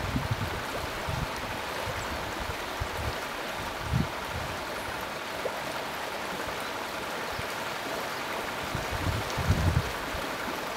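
Steady rushing of a small river flowing past an ice shelf, with a few short low thumps about four seconds in and again near the end.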